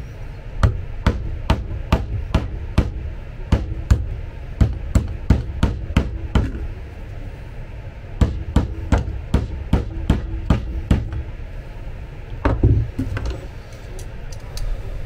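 Hammer tapping repeatedly on a part of an electric bed's linear actuator, held in pliers against a metal block. The sharp blows come about two or three a second in two runs, with a heavier knock near the end.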